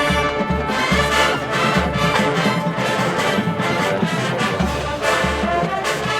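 Marching band playing: massed brass with deep low notes and steady drum beats.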